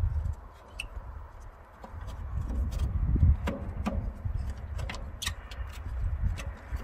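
Irregular clicks and knocks of a tractor's air cleaner housing being twisted and pulled by hand as it is worked loose, over a low rumble.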